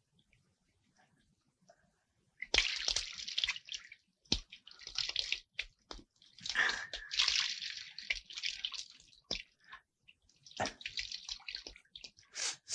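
Bathwater splashing and trickling in several bursts of a second or more, with short gaps between, as two people wash each other in a tub, starting about two seconds in.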